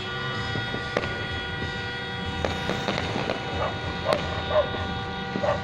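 A dog barking, about four short barks in quick succession starting a little past halfway, with sharp firecracker pops earlier.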